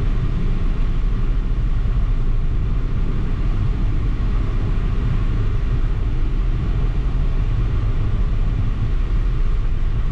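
Steady low rumble of engine and road noise inside a car's cabin while driving at road speed.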